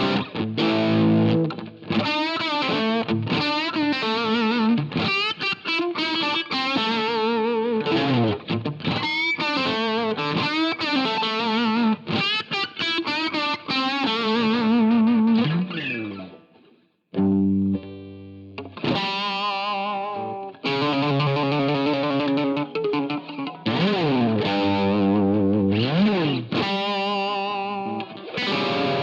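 Electric guitar played through a Jeds Peds Klone, a Klon-style overdrive pedal, with lightly driven lead lines, bent notes and vibrato. The playing stops briefly a little past halfway, then picks up again.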